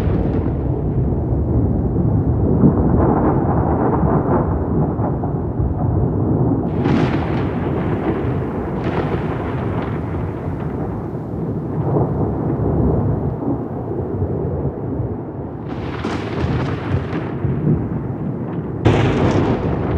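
Thunderstorm with rolling thunder: a continuous low rumble, broken by sharper, brighter thunder cracks about a third of the way in, again about four-fifths in, and once more near the end.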